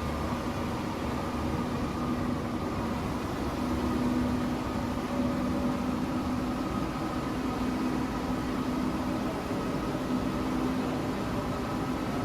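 NS-16 metro train's steady mechanical hum: an even rumble with a low held tone and a higher held whine.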